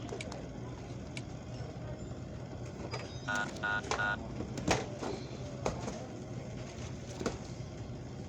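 Three short electronic beeps from a checkout point-of-sale terminal during payment, about three seconds in, followed by a few sharp clicks and knocks over a steady low hum.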